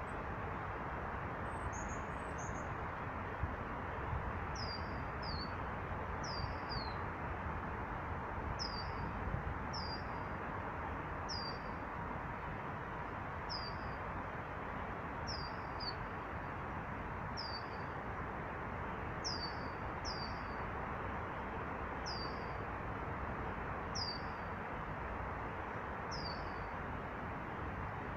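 A small bird repeating a short, high call that drops in pitch, about once every second or two, over a steady background rush.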